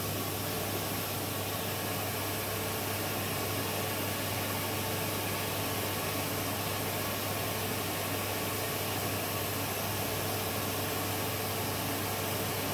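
Steady whooshing drone of a vacuum-forming setup: the vacuum drawing air through the hose under the frame to pull the plastic sheet down over the mould, with a heat gun blowing hot air onto the sheet to soften it.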